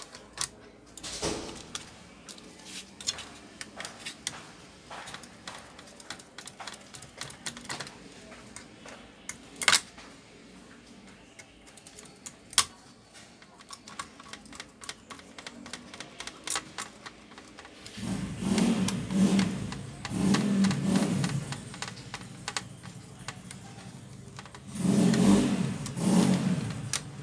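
Small clicks and taps of a laptop heatsink and its screws being handled and fitted back onto the motherboard, with two sharper clicks. About two-thirds of the way through, a motorcycle tricycle's engine comes in much louder, running rather noisily in uneven surges.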